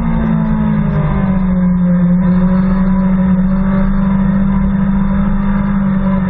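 BMW S1000RR's inline-four engine with revs falling as the bike brakes hard for a corner, a small jump in revs about a second in as it is shifted down, then running at steady revs through the corner. Wind rush over the onboard microphone throughout.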